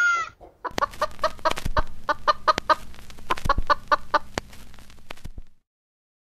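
Chicken clucking in a rapid run of short clucks, about five a second, over a low steady hum; it cuts off suddenly about five and a half seconds in.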